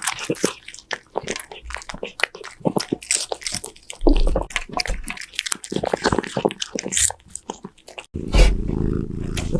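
A cat chewing crunchy food close up, with rapid sharp crunches and bites. Near the end the crunching stops and a steady low rumble takes over.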